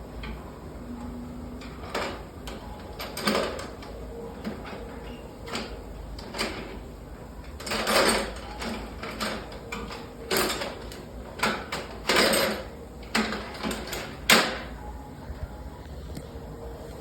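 Irregular clicks, knocks and short scrapes of hands handling metal fittings on a boiler's controls, over a steady machinery hum.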